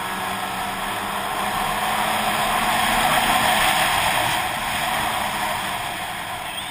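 Snowmobile engine running while riding along a snowy trail, mixed with a steady rush of wind and track noise on the camera. The sound swells to its loudest a little past the middle, then eases off.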